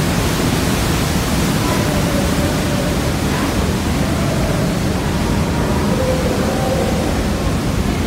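Loud, steady rushing of a waterfall's water, heard from inside a rock tunnel.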